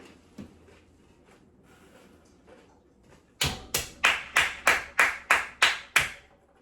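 Hand clapping: a quick run of about nine sharp claps, about three a second, starting a little over three seconds in.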